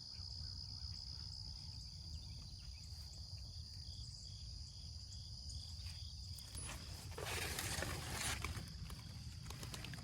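Insects, crickets or similar, keeping up a steady high-pitched drone over a low rumble, with a louder rush of noise about seven seconds in.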